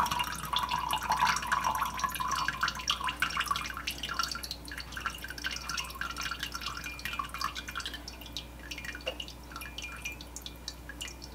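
Hot grease trickling and dripping from a tilted skillet of cooked ground beef into a ceramic cup, a quick patter of drips that thins out over the last few seconds.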